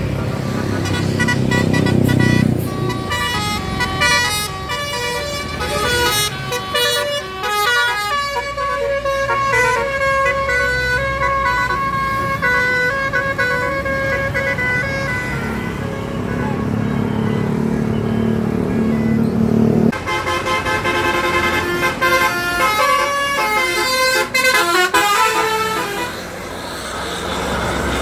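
A tour bus's 'telolet' multi-tone musical horn plays two runs of stepping notes like a short tune: a long one from about 4 to 16 seconds and a shorter one later. The bus's engine runs underneath, rising in loudness between the runs.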